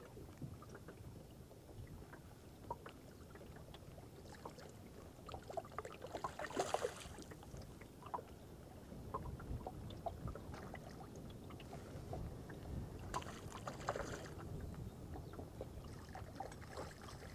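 Choppy water lapping against a small boat's hull, with scattered light knocks and two brief louder rushes of noise, about six and thirteen seconds in.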